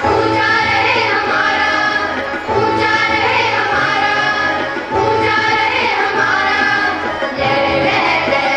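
Song with a sung melody over a steady, repeating drum-and-bass beat.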